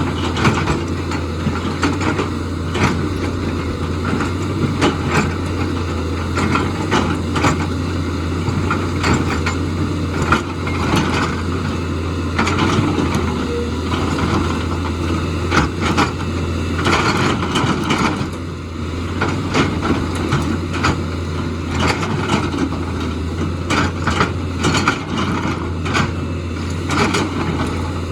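Excavator engine running steadily under a constant low hum, with frequent irregular knocks and scrapes of rock and debris being dug and moved.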